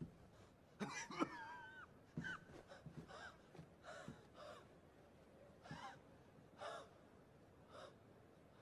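A hurt man's strained gasps and groaning breaths. The loudest comes about a second in, and shorter ones follow about once a second over a quiet background.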